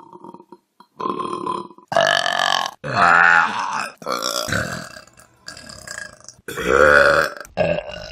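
A run of about six loud human burps from short clips cut back to back, each lasting roughly a second, with a deep pitch that wavers and sharp breaks between them.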